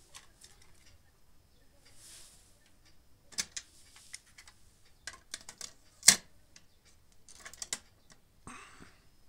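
TEAC V-7 cassette deck being loaded: the cassette door opening on eject, a tape cassette put into the holder and the door pushed shut. It is heard as a string of plastic clicks and clunks, the loudest a single sharp click about six seconds in, with a short scraping sound near the end.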